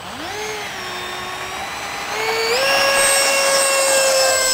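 Radio-controlled model airplane's motor and propeller whining in flight. About two and a half seconds in, the whine steps up in pitch and gets louder, then holds steady.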